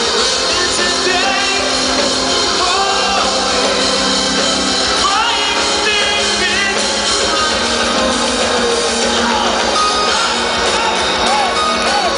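Live power metal band playing, a male singer holding wavering sung notes over electric guitars and drums, loud and dense throughout.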